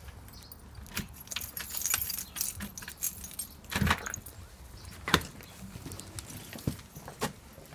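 Footsteps with jangling, clattering handling noise as things are carried along, and a few sharp knocks about four and five seconds in.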